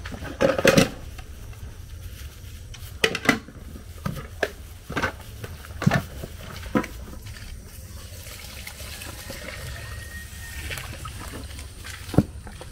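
Dirty water being poured off snails in plastic bowls, splashing and trickling, with several sharp knocks as the snail shells hit the plastic.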